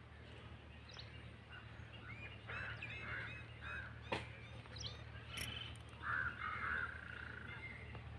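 Several birds calling and chirping in short, scattered calls, the loudest about six seconds in, with a single sharp click about four seconds in and a steady low hum underneath.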